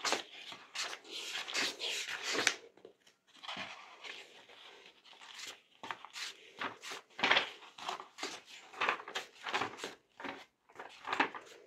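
Pages of a thick textbook being turned by hand one after another: a quick, irregular run of short papery swishes and rustles.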